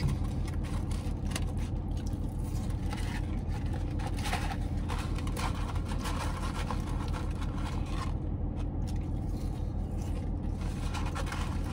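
Paper food wrapper crinkling and rustling in the hands, in short scattered bursts, over the steady low hum of a car idling.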